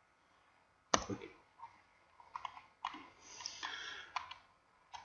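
Clicks of a computer mouse and keyboard: one sharp click about a second in, then a scatter of lighter clicks and a brief rustling patch.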